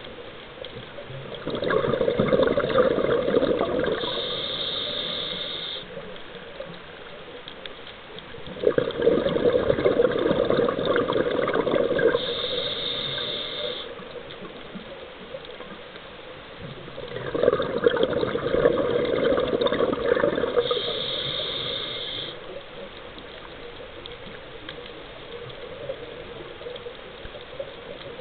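Scuba diver's exhaled air bubbling out of the regulator underwater, three long exhalations about eight seconds apart with quieter breaks between them.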